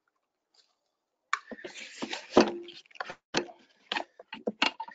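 Handling noise starting about a second in: a run of knocks and clicks, with a short scrape, as satellite-antenna boom-arm parts are set into and handled inside a foam-lined plastic hard case.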